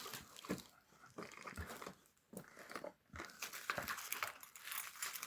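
Faint rustling, crinkling and light clicks of packaging and small items being handled while a parcel is unpacked, coming in short scattered bits with brief pauses.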